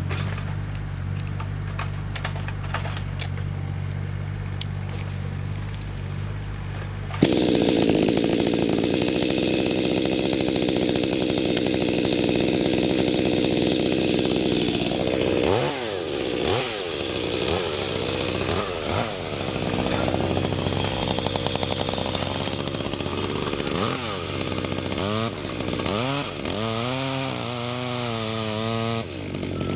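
Chainsaw cutting acacia (black locust) wood: after a low steady hum, the saw jumps to full speed about seven seconds in, then its pitch dips and recovers again and again as the chain bogs under load in the wood, wavering quickly near the end.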